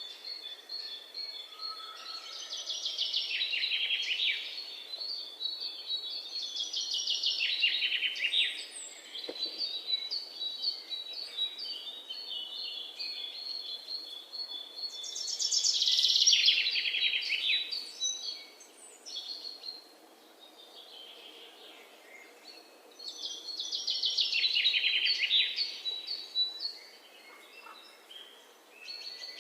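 Budgerigars chirping and warbling in a chattering flock, the contented chatter of budgies in a happy mood. It swells in three loud bouts, with quieter chirping between them.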